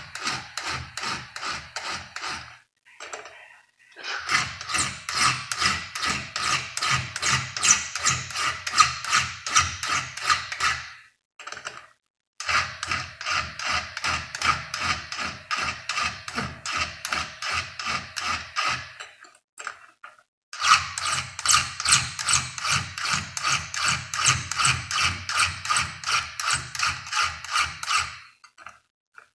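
Hand file rasping across the teeth of a chainsaw chain: quick, even strokes of about three a second in four runs, one tooth after another, with short pauses between. It sounds like a lot of metal coming off, though little is.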